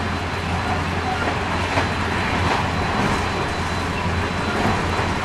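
Interior running sound of a JR West 223 series 2000 electric multiple unit, heard from a motor car: a steady rumble of wheels on rail with a thin steady high tone above it.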